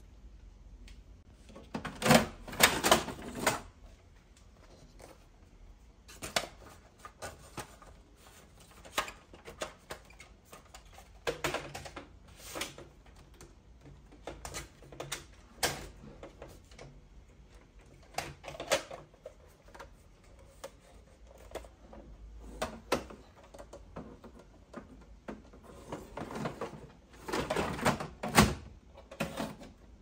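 Brother inkjet printer printing, its mechanism clicking and whirring in short bursts every few seconds, loudest about two seconds in and again near the end.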